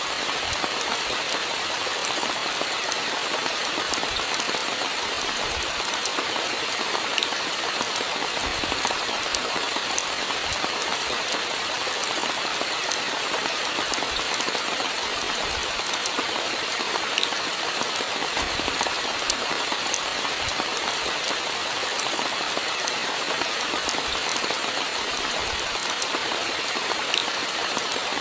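Steady rainfall: an even hiss of falling rain, dotted with many small ticks of single drops striking a surface.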